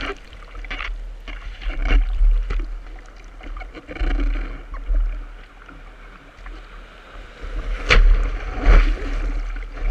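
Whitewater of breaking surf washing over and splashing against a surfboard, with a deep rumble of water against the microphone. The loudest splashes come about two, four and eight seconds in.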